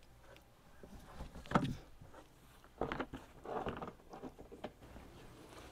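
A large plastic storage tote being handled and set up: a few scattered light knocks and a short scraping, about a second and a half in and again around three to four and a half seconds in.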